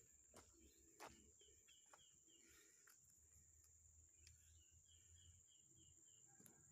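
Faint forest ambience: a bird calls in two runs of short repeated high notes, about four a second, over a steady high-pitched drone, with a couple of faint ticks in the first second.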